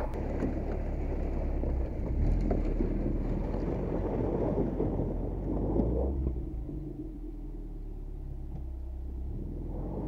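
Lada VAZ-21099 engine under hard throttle while the car pushes into a bog, dense and loud, easing to a quieter steady running after about six seconds.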